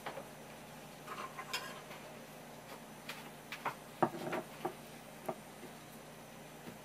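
A small glazed ceramic plate set down on a wooden table with a sharp clack about four seconds in, among scattered light clicks and taps as the food is handled and laid on the plate.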